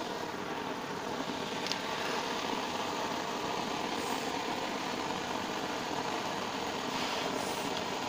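Steady mechanical drone, like an engine running at idle, holding an even level throughout, with a faint hiss over it.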